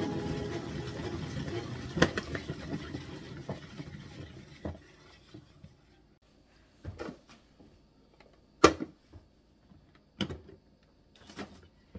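Plastic pump salad spinner's basket whirring and rattling as it coasts down, fading out over about five seconds. It is followed by a handful of sharp plastic knocks and clicks as the spinner is lifted and handled, the loudest about two-thirds of the way through.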